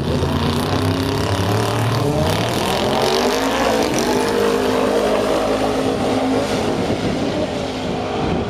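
Two drag-racing cars launching from the start line about two seconds in and accelerating hard down the strip side by side, the engine note climbing as they pull away.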